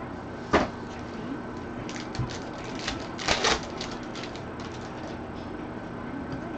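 Taps and clicks of trading card packs being handled and shuffled on a table by gloved hands, with a short, louder rustle a little past halfway.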